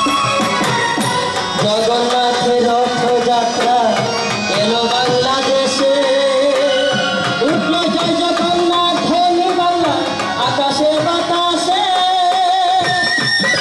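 Devotional kirtan music: a khol (mridanga) drum and small hand cymbals (kartals) keep a steady rhythm under a melody sung or played in long, gliding held notes.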